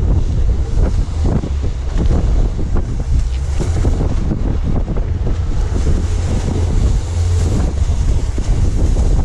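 Heavy wind buffeting the microphone over the rush of spray and waves as a small open boat runs fast through a rough sea, the hull slapping the chop in irregular splashes.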